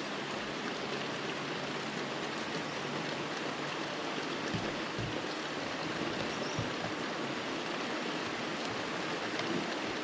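Steady summer rain falling on trees and ground: an even hiss with a few soft thumps partway through.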